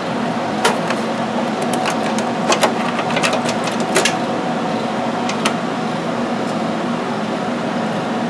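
Scattered sharp clicks and taps as the new tablet interface board and its screws are handled into place, thickest in the first five seconds, over a steady background hum.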